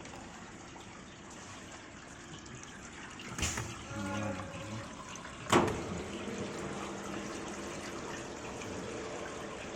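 Water running steadily, with two sharp knocks, one about a third of the way in and one just past halfway.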